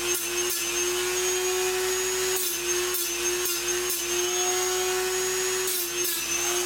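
Dremel rotary tool running at a steady high-speed whine, its cutoff wheel touched down on the stabilizer's sheet-metal case in about eight short grinding bursts.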